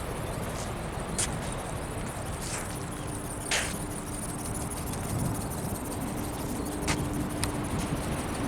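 Strong wind buffeting the microphone in a steady low rumble, with a faint steady hum underneath and a few sharp clicks scattered through.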